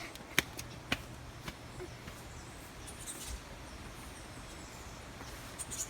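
Footsteps on a path, sharp and about two a second, stopping about a second and a half in. After that comes quiet outdoor ambience with a few faint, high bird chirps.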